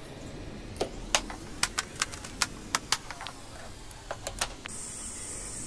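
Kitchen knife chopping small round akbare chillies on a cutting board: a dozen or so sharp knocks of the blade on the board at irregular spacing, stopping about four and a half seconds in, after which only a faint steady hiss remains.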